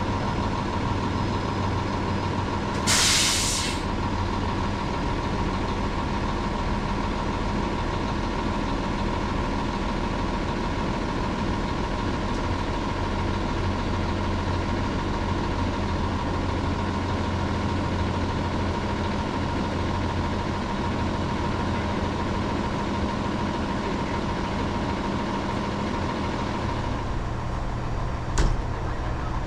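Heavy truck's diesel engine running steadily, with a short, loud hiss of air about three seconds in from the truck's air brake system. Near the end the engine note changes and there is a single sharp click.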